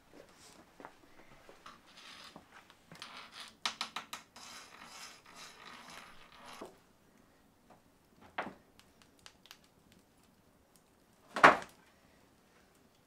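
Hand work on a slate stone hearth: a few seconds of scraping with many small clicks, a lone click a little later, then one sharp knock about eleven and a half seconds in, the loudest sound.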